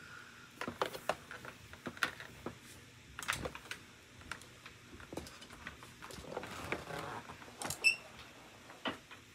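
Scattered light clicks, taps and soft rustling of handling, with a sharper knock about eight seconds in; no vacuum motor is running.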